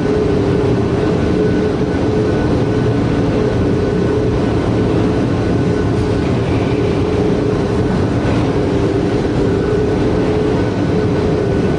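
Jumbo corrugated-box flexo printer casemaker running steadily, a constant loud mechanical noise with a steady hum, as its stacker conveys the finished flat boxes out.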